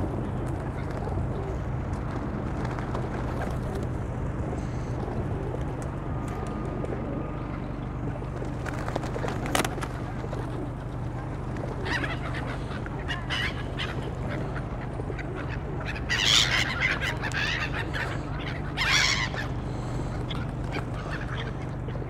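Waterbirds calling in short clusters of calls, loudest about sixteen seconds in and again about three seconds later, over a steady low background hum.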